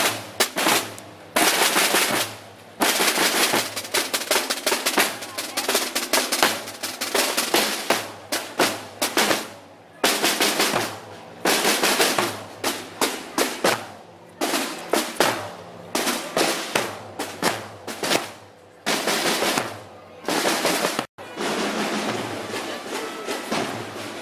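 A marching corps of drums plays rhythmic patterns and rolls, many drummers striking in unison with short pauses between phrases. After a sudden break a little past twenty seconds the drumming goes on softer and more even.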